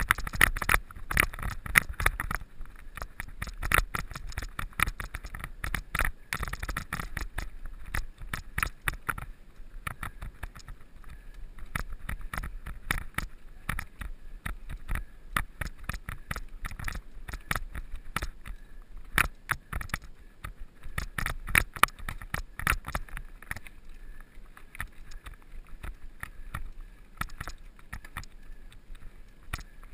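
Mountain bike ridden over rough ground, its parts rattling in a dense run of irregular clicks and knocks over a low rumble. The rattling is busiest for the first few seconds and again about two-thirds through.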